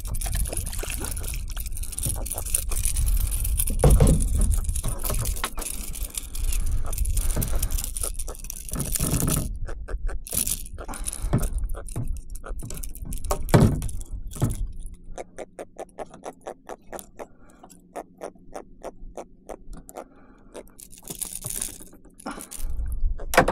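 A small jack being landed and unhooked beside a kayak: wind buffets the microphone over splashing and handling knocks, with the loudest thumps about four seconds in and again near the middle. In the last third comes a fast run of clicks and rattles as the fish is held in the gripper.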